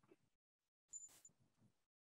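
Near silence: room tone, with one faint, brief high-pitched sound about a second in.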